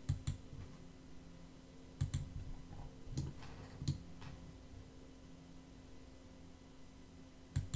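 Scattered computer-mouse clicks, about seven in all and some in quick pairs, placing points with a sketch tool, over a faint steady electrical hum.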